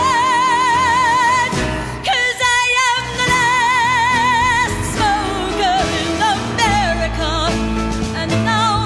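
A woman belting long sung notes with a wide vibrato over a band accompaniment, in a Broadway show tune.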